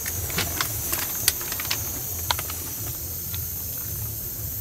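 Scattered light clicks and knocks, about eight, from a truck's steering wheel and adjustable steering column being moved back into position, over a steady low hum.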